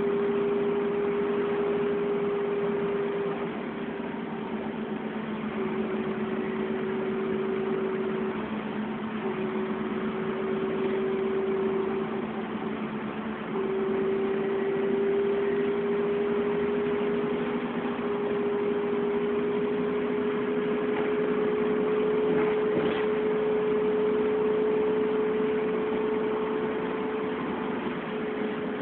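Dennis Trident double-decker bus running, heard from inside the upper deck: a steady engine and drivetrain hum with a clear whine that breaks off a few times, then rises slowly in pitch through the second half.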